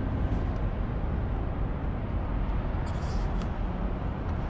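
Lexus LS500's electric power trunk lid closing on its motor, with a few light clicks about three seconds in as it comes down to the latch, over a steady low rumble.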